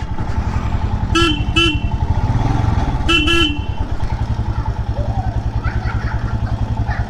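Royal Enfield Himalayan's single-cylinder engine running steadily at low revs. Its horn is beeped in two quick double toots, about a second in and again about three seconds in, announcing the rider's arrival.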